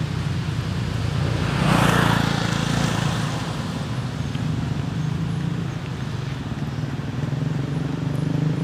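An engine running steadily at idle with a low, even hum, swelling into a louder rush of noise for about a second and a half around two seconds in.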